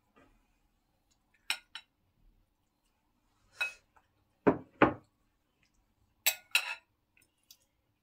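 Spoon and ceramic dishes clinking as soup is served from a serving bowl onto plates, with a few plates set down on a table: about eight separate short clinks and knocks, the two loudest close together a little after the middle.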